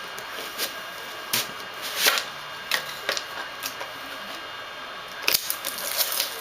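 Scattered clicks and rustles of a trading-card box and its packaging being handled and opened, at irregular intervals, growing busier near the end.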